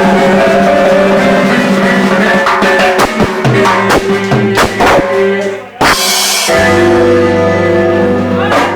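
Band music led by keyboards: sustained keyboard chords over drums, with a run of drum hits in the middle, a short break and a crash, then a long held chord near the end.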